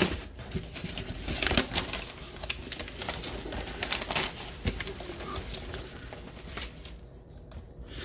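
Cardboard shipping box and paper insert being handled: a dense rustling and crackling that thins out about seven seconds in.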